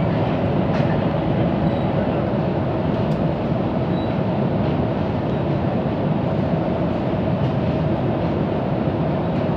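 Passenger train of the Mitre line's Tigre branch running at speed, heard from inside the carriage: a steady, even running noise with no single event standing out.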